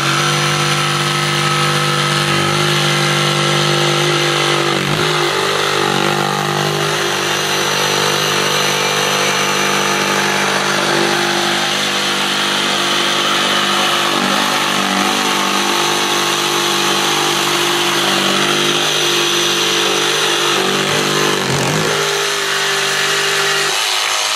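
DeWalt DCS335 cordless barrel-grip jigsaw with a Diablo fast-cutting wood blade, running steadily while it is forced through 1¼-inch-thick maple. Its pitch dips briefly several times as the blade loads up in the cut.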